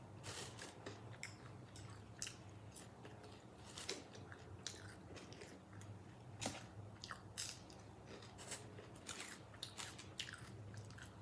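A person chewing and biting crispy fried chicken close to the microphone, with many irregular crunches and mouth clicks.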